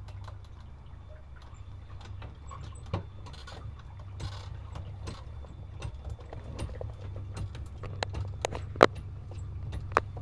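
Small solar-powered boat underway: a steady low hum with irregular knocks and clicks, two sharper knocks near the end.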